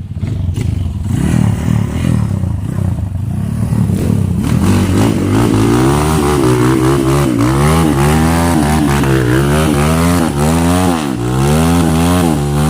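Trail motorcycle engine revving up and down over and over, roughly once a second, after a few seconds of rougher, steadier running.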